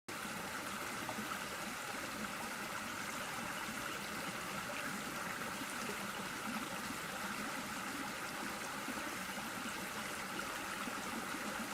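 Steady, even outdoor background hiss with no distinct events, a light band of higher hiss running through it.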